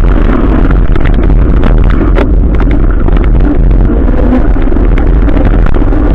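Adventure motorcycle being ridden, its engine running under heavy wind rumble on the microphone, with scattered sharp ticks.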